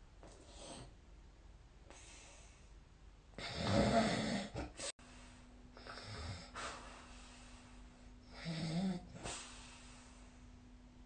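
A sleeping person snoring, recorded by a phone snore-tracking app. Loud rattling snores come about four seconds in and again near nine seconds, with softer breaths in between. A brief dropout comes about five seconds in, followed by a faint steady hum.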